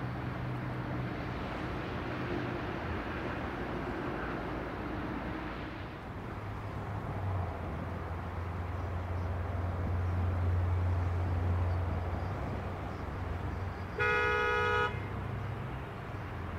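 A vehicle horn toots once, for just under a second, near the end. Under it runs a steady noisy rumble, with a low hum through the middle.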